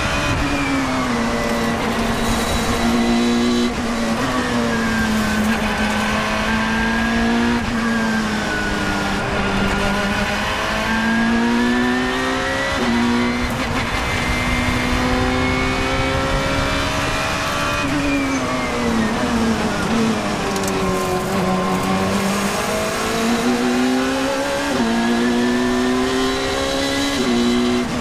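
Engine of an open-cockpit sports racing car, heard on board at speed. Its pitch climbs under acceleration with quick steps at gear changes and drops away twice under braking for corners, over a steady rush of wind and road noise.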